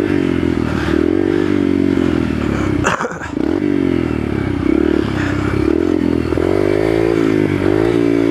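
Yamaha TTR125's single-cylinder four-stroke engine running with its pitch rising and falling, held in first gear because the shift lever is bent in under the engine and can't be moved. About three seconds in, the engine note drops briefly under a short sharp noise.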